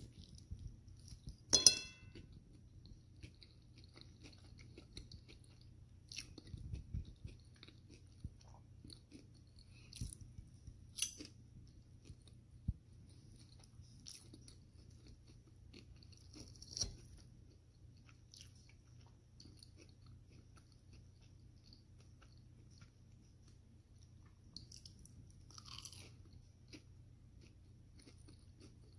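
A person chewing a mouthful of syrupy pancake, with soft, faint mouth and lip smacks. About two seconds in comes one sharp clink with a short ring.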